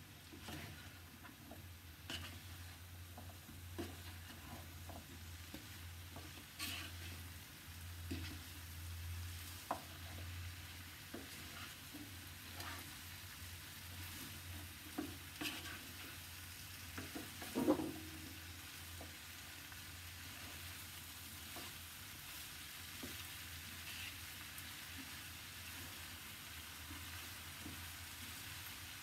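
Diced turnip and potato frying in a pan, sizzling steadily while a wooden spatula stirs them, with scattered scrapes and knocks of the spatula against the pan. The loudest knock comes a little after halfway.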